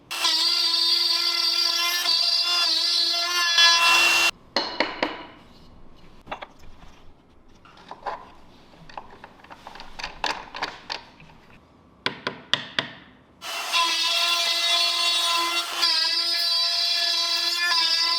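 A power tool cutting wood runs with a high, steady whine for about four seconds and then stops abruptly. A stretch of irregular wooden knocks and taps follows, and near the end the tool runs again, its pitch dipping briefly as it takes load.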